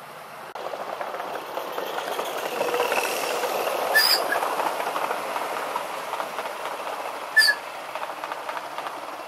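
Ride-on miniature railway train, styled as a TGV, rolling past on its small-gauge track: a rattling run of wheels over the rails that grows louder and then slowly fades. Two short, sharp squeaks stand out, about four seconds in and again some three seconds later.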